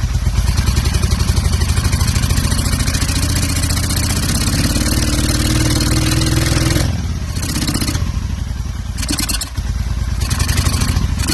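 Honda Shadow 750's V-twin engine running and being revved, its pitch climbing slowly and then dropping about seven seconds in, with several short bursts of hiss after that. The engine is running lean from a vacuum leak at the carburetor intake boots.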